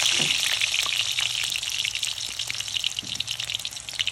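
Chopped alliums sizzling in hot oil in a pan. The hiss fades steadily, with scattered crackling pops.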